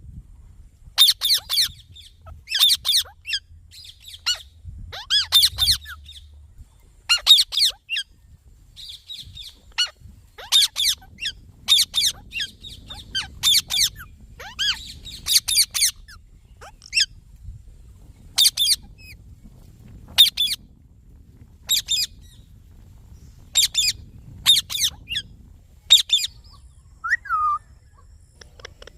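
Indian ringneck parrot (rose-ringed parakeet) calling: short, high, shrill calls repeated every second or two, with a brief falling glide near the end.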